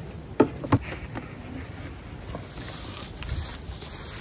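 Handling noise from gloved hands and a beekeeping suit: two sharp knocks within the first second, a small click, then soft rustling a little later.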